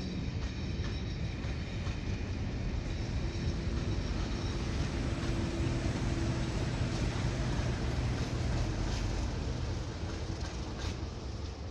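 A diesel-hauled train of passenger coaches rolling past at low speed, its wheels rumbling on the rails, with a steady low engine drone. Near the end the trailing Class 37 diesel locomotive, an English Electric V12, comes by and the sound starts to fade as the train moves away.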